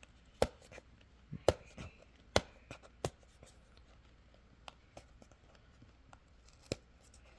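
Hands handling the packaging of a phone's silicone case: a series of sharp clicks and taps, with light rubbing and handling noise between them.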